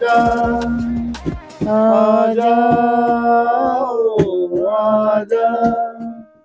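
Men singing a Hindi film song without instruments, holding long notes between lines. A few sharp taps or claps are mixed in.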